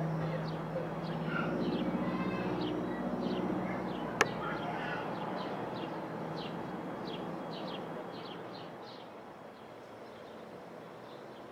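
Single-engine propeller aircraft flying past overhead, its engine a steady drone that fades away after about five seconds. Birds chirp throughout, and a single sharp click comes about four seconds in.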